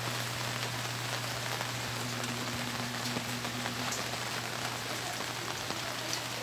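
Steady rain falling, with scattered small ticks of drops hitting nearby surfaces, over a low steady hum.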